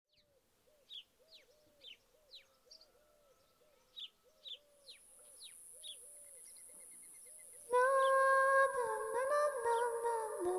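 Birds calling: quick downward chirps repeating over a low, short call that repeats about twice a second, with a steady high hiss joining about halfway. Near the end, sustained music starts abruptly and is louder than the birds.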